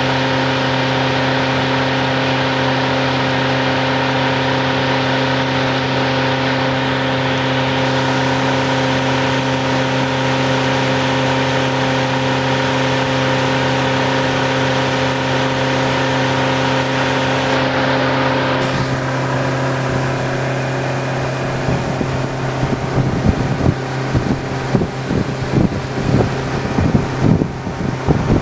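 Motorboat engine running at a steady speed with an even hum. About two-thirds of the way through the engine note drops away and gusts of wind buffet the microphone.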